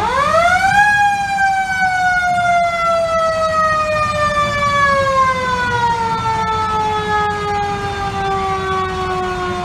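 Fire truck siren winding up sharply to its peak about a second in, then slowly winding down in pitch, over a low rumble of idling engines.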